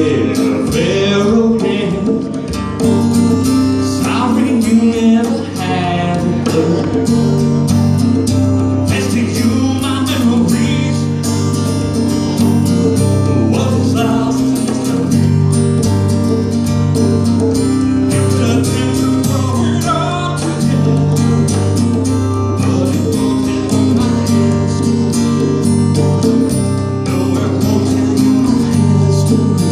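Live acoustic rock: a strummed acoustic guitar with conga drums beating along, and a man singing at times over it.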